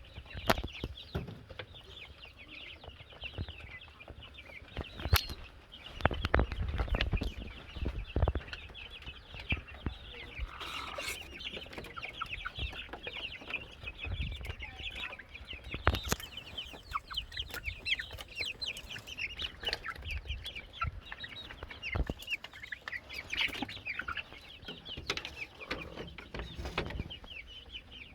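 Chickens clucking and chirping without pause, with scattered sharp knocks and a few low rumbles.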